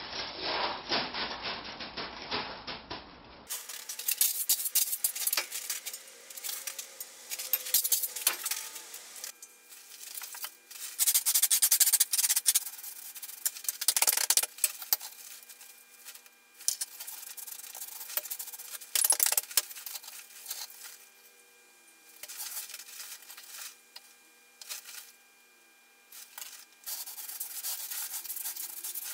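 Gravel and stones crunching and scraping in irregular bursts with short pauses, as someone moves about and works on a gravel bed. A faint steady hum runs underneath.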